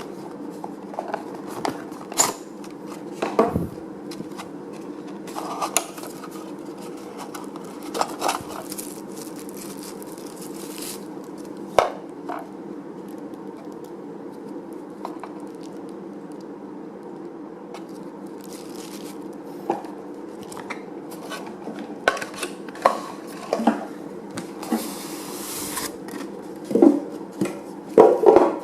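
Packaging and product parts being handled: scattered knocks, clicks and scrapes, busiest near the end, over a steady low hum.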